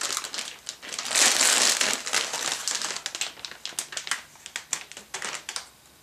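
Plastic anti-static bag crinkling and rustling as a motherboard is slid out of it, densest about a second in, then thinning to scattered crackles that die away near the end.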